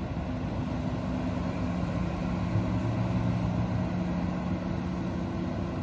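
Large mining excavator's engine running steadily, a low even drone that holds without change.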